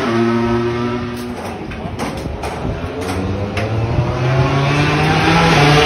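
Yamaha YZR-M1 MotoGP inline-four engine running on the stand in the pit garage, held at steady high revs. About a second in the revs drop and fade, with a few sharp clicks. From about four seconds in they climb back to a steady high note.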